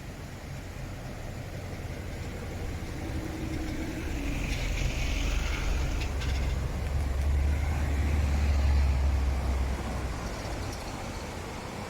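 A motor vehicle passing by: its low engine rumble builds to a peak near the end and then fades, over a steady rushing hiss.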